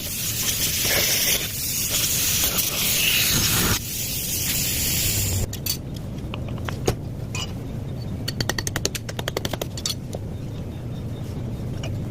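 Air-conditioning vacuum pump running: a loud air hiss over a low motor hum, which cuts off about five and a half seconds in, leaving the low hum with scattered clicks and a quick run of rattling ticks.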